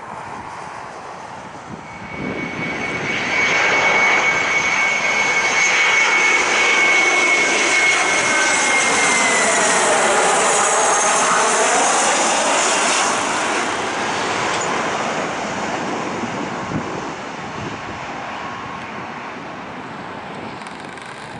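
Boeing 737-500's CFM56-3 turbofan engines on final approach, passing close by. The sound swells about two seconds in, and the engines' high whine drops in pitch as the jet goes past about halfway through, then fades.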